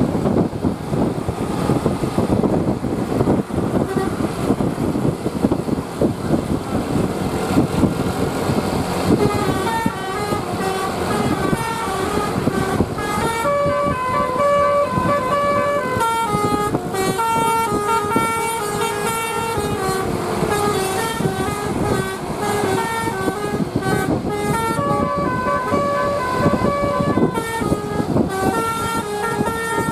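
A bus's basuri telolet horn, a multi-tone musical air horn, playing a tune of stepped, held notes that starts about nine seconds in, over a steady rush of vehicle noise.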